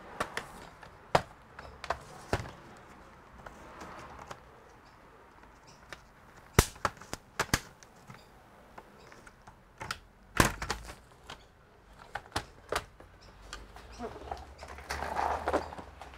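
Plastic laptop chassis being handled on a rubber work mat, with scattered sharp clicks and knocks as the laptop is closed, turned over and its bottom cover is lifted off. The loudest knocks come about six and a half and ten seconds in, and there is a longer rustle near the end.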